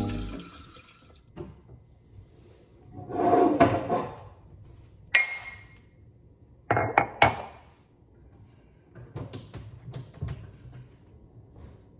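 Ceramic coffee mugs being handled and set down on a table: a short scuffing handling noise about three seconds in, a ringing clink of ceramic a couple of seconds later, then two knocks close together as the mugs land, and a few light taps near the end.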